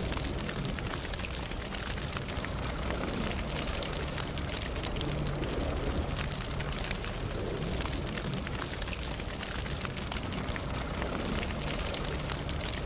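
Wood campfire burning, with dense crackling and frequent sharp pops over a low rumble of flame.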